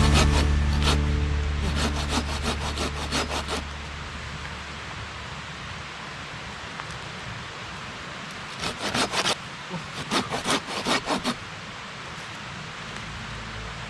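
Background music fading out over the first few seconds, then two short runs of quick rasping strokes over a steady hiss.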